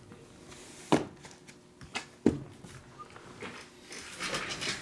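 Shrink-wrapped cardboard trading-card boxes set down on a table with two sharp knocks about a second and a half apart, then crinkling of the plastic wrap near the end as a box is picked up.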